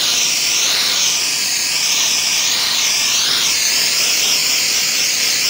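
Pressure washer wand spraying a high-pressure jet of water across a concrete sidewalk to blow it clear: a steady, loud hiss whose pitch wavers up and down as the spray sweeps over the surface.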